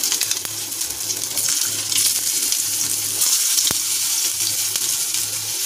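Hot oil with mustard seeds sizzling in a non-stick frying pan as cubes of steamed dhokla are laid in to shallow-fry, with scattered small pops and one sharp click a little past halfway.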